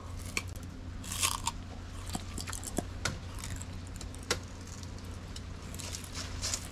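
Crackling and rustling of dry banana leaves, with scattered sharp snaps, as a hand grips and pulls at a hanging bunch of green bananas on the plant. The rustling is strongest about a second in and again near the end.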